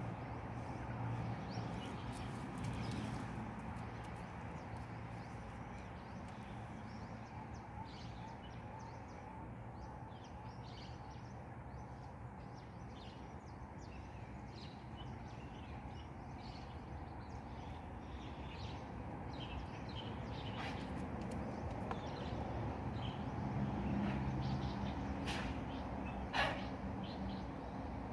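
Small birds chirping on and off over a low steady hum, with one sharp tick near the end.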